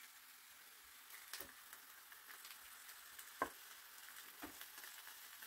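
Raw duck pieces being laid by hand into a frying pan: a few soft knocks and taps, the loudest about three and a half seconds in, over a faint steady hiss.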